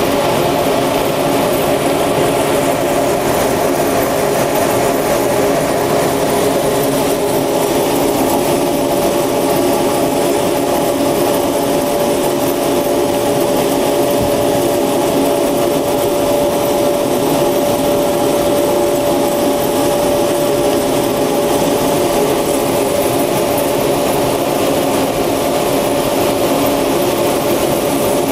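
Cremation furnace machinery running steadily: a constant mechanical drone with a steady whining tone that grows stronger about a third of the way in.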